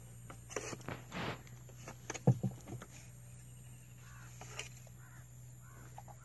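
A sharp knock about two seconds in, among a few lighter clatters. Later, crows caw several times in short calls.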